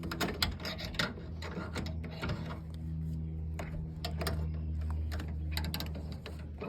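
Irregular clicks, clatters and knocks of objects being handled and put in place, over a steady low hum.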